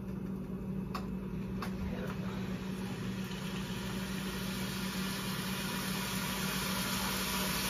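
Beef browning in a skillet, sizzling with a steady hiss over a steady low hum, with a couple of faint clicks about a second in.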